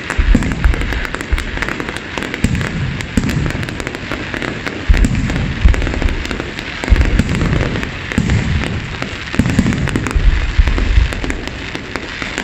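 Fireworks display: aerial shells bursting with deep booms every second or so, over a continuous dense crackle.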